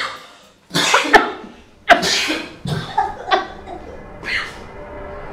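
People coughing in a run of short bursts, about six in all, the loudest near one and two seconds in, choking on a foul stink from a fart-smell spray.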